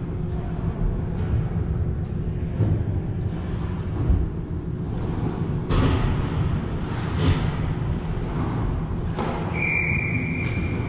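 Ice rink game noise: a steady low rumble with two sharp knocks a second and a half apart, then a referee's whistle blown as one steady high blast for about a second and a half near the end.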